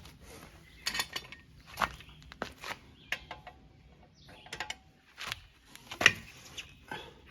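Irregular sharp metallic clicks and clanks from hand tools and the jack being worked at a car's wheel, several of them, roughly a second apart.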